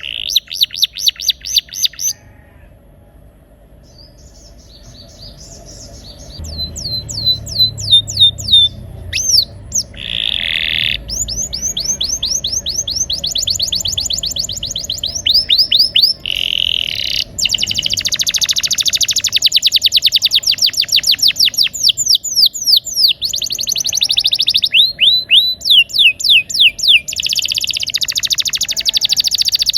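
Male domestic canary singing rolling song: fast trills of rapidly repeated downward-sweeping notes. The bird breaks off for about two seconds near the start, then resumes and sings densely to the end.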